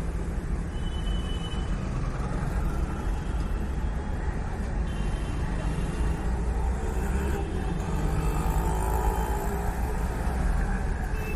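Steady low rumble of vehicle engines and street traffic.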